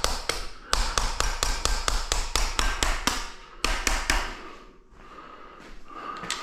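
A small 3/8-inch-drive impact wrench hammering in rapid bursts on a bolt of a GM 2.4 EcoTec engine, an undersized tool standing in for a bigger impact. The last burst ends a little past four seconds in.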